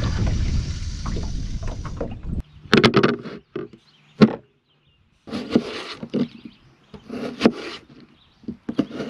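A rushing noise like wind on the microphone, cut off abruptly a little over two seconds in. Then come irregular clusters of knocks and scrapes on wood, one sharp single knock among them.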